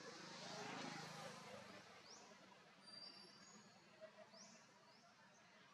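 Faint forest ambience: short rising chirps repeat every second or two, with a low hum in the first second and a half.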